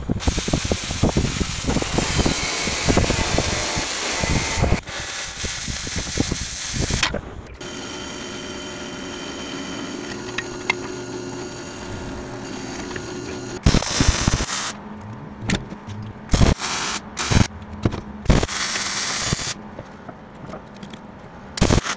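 An oxy-fuel cutting torch hissing and crackling as it cuts through steel diamond plate. Then a drill press runs with a steady motor hum as the bit bores through a steel plate, followed by a string of short, sharp noise bursts that start and stop.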